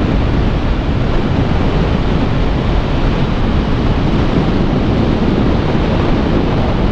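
Steady wind rush over the microphone, with road noise beneath it, from a motorcycle riding at about 95 km/h.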